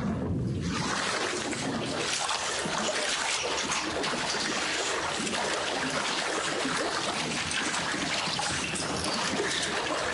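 Water trickling and splashing: a steady, dense wash of small splashes.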